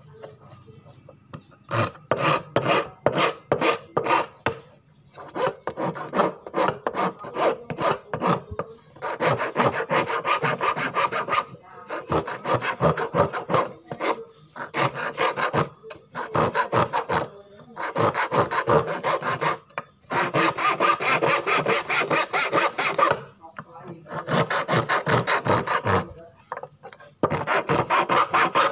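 Flat metal file rasping across a small wooden knife-handle piece. It goes in runs of quick back-and-forth strokes broken by short pauses, with slower, separate strokes at first.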